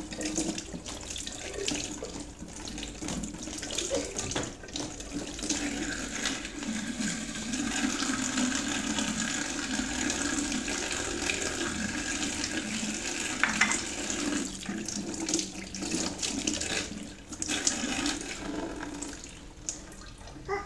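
Tap water running into a stainless steel kitchen sink as hands are washed and rinsed under it, rinsing off a coffee-grounds scrub; the splashing rises and falls as the hands move.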